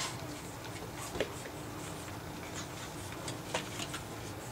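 Japanese Chin puppies scuffling with their toys on carpet: irregular light clicks and taps over a faint steady hum.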